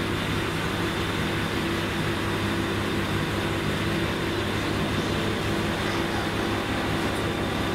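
Steady low hum inside a stationary diesel railcar, its engine idling.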